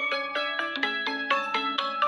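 Background music: a quick melody of short, bright notes that each ring off, about five a second.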